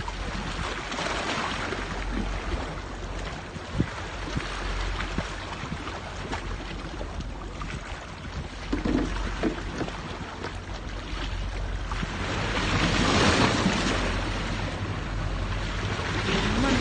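Sea waves washing against a rocky shore, with wind on the microphone; the wash swells louder about a second in and again for a couple of seconds near the end.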